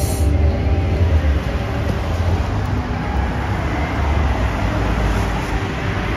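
Busy city road traffic: a steady low rumble of passing cars and buses with a wash of road noise.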